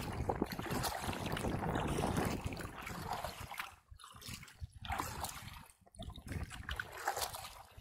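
Water lapping and trickling around a kayak's hull, uneven, with a few short lulls in the second half.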